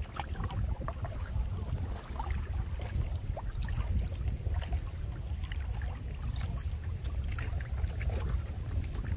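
Wind buffeting the microphone in a steady low rumble out on open lake water from a canoe, with small scattered splashes and drips of water around the boat.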